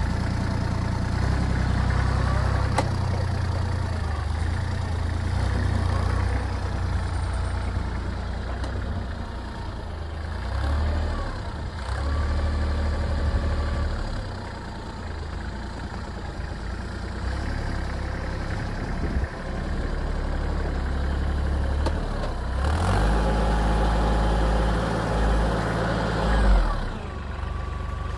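Kubota GL 301 compact tractor's diesel engine running while its front loader works snow, its note rising and falling with the load. Near the end it runs louder and steadier for a few seconds, then drops back.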